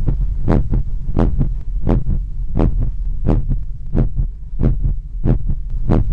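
Heartbeat picked up through a stethoscope and microphone: regular paired lub-dub beats, about three every two seconds, over a steady low hum.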